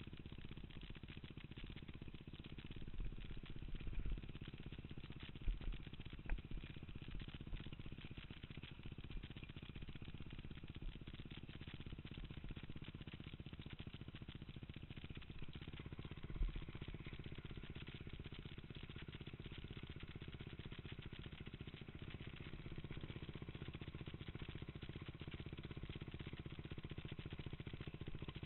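Dirt bike engine idling steadily and faintly, with a few low thumps in the first few seconds and again about halfway.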